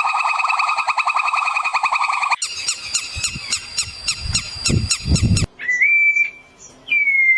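Animal calls in three quick cuts: a fast pulsed trill, then rapid repeated chirps over a few low thumps, then a few long whistled notes.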